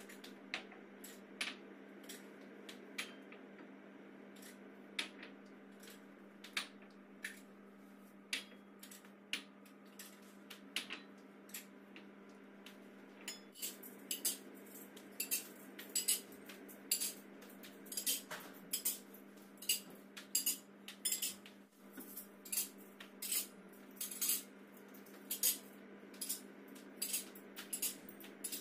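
Bowls and plates clinking sharply as they are set down one after another on a dining table, scattered at first and coming thick and fast from about halfway. A steady low hum runs underneath.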